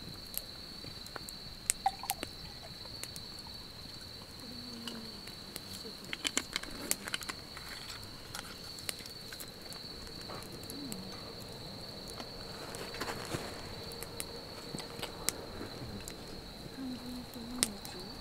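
Wood campfire crackling with scattered sharp pops, over a steady high chirring insect chorus of crickets.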